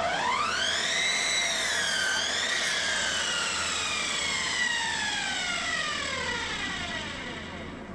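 Electric power saw's motor whining up to speed, dipping briefly about two seconds in, then slowly winding down after release.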